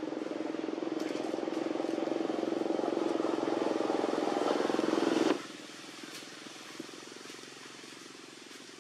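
A motor engine running steadily, getting louder, then cutting off abruptly about five seconds in; a fainter engine hum carries on after it.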